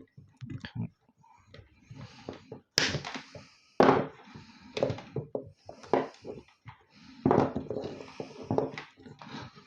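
Cutting and handling a PC power supply's circuit board: an irregular series of knocks, sharp clicks and clatters, the sharpest about three and four seconds in.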